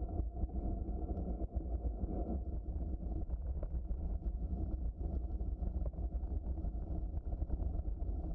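Bicycle riding along a woodland trail: a steady low rumble of the tyres rolling over the trail surface, with frequent small clicks and rattles from the bike.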